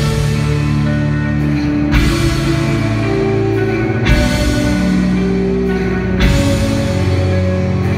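Live instrumental post-rock band playing loud, with sustained electric guitar and bass notes over drums. Cymbal crashes come about every two seconds.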